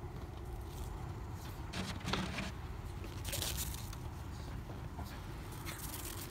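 Crunching and scraping in packed snow, a few short bursts, over a low steady rumble.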